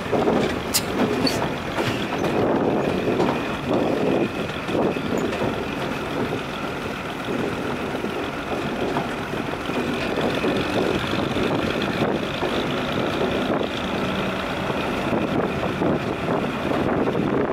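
Tractor engine running steadily under load as it tows a fishing boat on its trailer across the sand.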